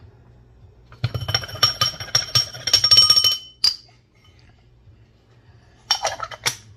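Needle distribution (WDT) tool stirring coffee grounds in an espresso portafilter, its needles clicking rapidly against the metal dosing ring and basket, which ring with a high, bell-like tone for about two seconds. A few separate sharp clicks follow near the end.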